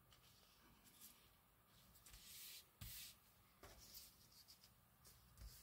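Near silence, with a few faint rustles of paper and ribbon being handled; the loudest come about two to three seconds in.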